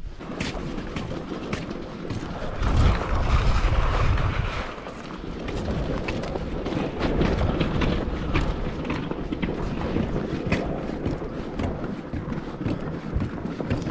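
Strong wind buffeting the microphone in a low rumble that swells about three seconds in, with a scatter of short clicks throughout.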